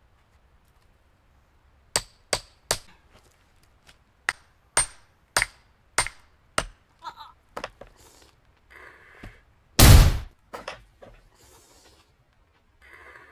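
Firewood being split with a steel splitting wedge: about a dozen sharp, ringing hammer strikes at roughly two a second, then one much louder, longer crash about ten seconds in.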